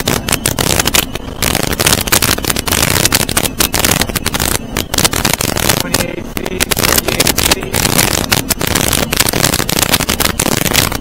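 Cabin boat running on plane through chop, heard from inside the cabin: a loud, steady rush of engine, water and wind, broken by rapid irregular thumps and crackling.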